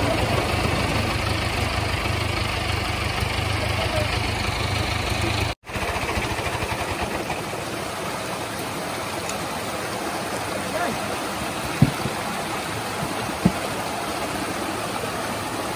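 Shallow stream rushing over rocks, with the David 995 tractor's engine idling low underneath for about the first five seconds. After a brief break the water carries on with the engine much fainter, and two sharp knocks come near the end.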